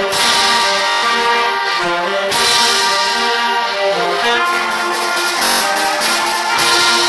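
A school ensemble of violins, flutes, clarinet and saxophones playing a tune together. The music changes abruptly about two seconds in, as at an edit.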